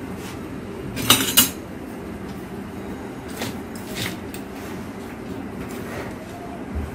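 Kitchenware clinking and knocking, a few sharp clicks: a quick cluster of two or three about a second in, then a few fainter single taps, over a steady low hum.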